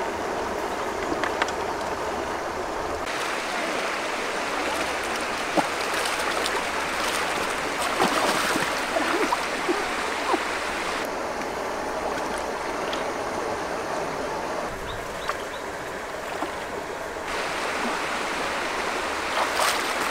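Water rushing and sloshing steadily, with small splashes and clicks scattered through it. The sound changes abruptly a few times.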